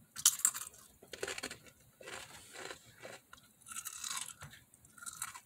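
A person chewing spicy crunchy chips close to the microphone, a quick run of irregular crunches.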